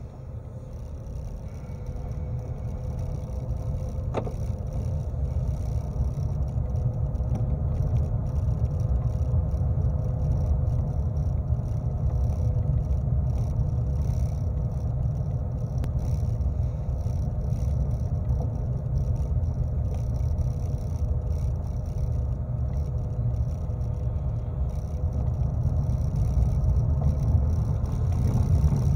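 Low road and tyre rumble heard inside a vehicle's cabin as it pulls away and drives slowly over old narrow concrete pavement, growing louder over the first few seconds as it gathers speed, with a faint steady hum over it. A single click about four seconds in.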